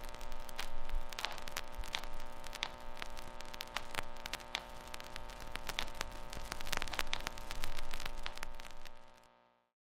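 Background music of sustained chords, overlaid with a dense crackle of clicks, that cuts off abruptly about nine seconds in.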